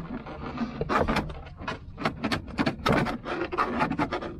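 Plastic interior trim of a Citroën Berlingo van being pried and worked loose by hand: a dense run of irregular clicks, knocks and rubbing.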